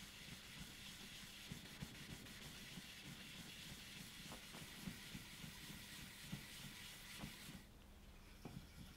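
Wet sanding block rubbing back the lacquer on a Gibson Les Paul headstock face: faint, soft rubbing strokes of the cutting-back stage before polishing. The rubbing hiss stops near the end.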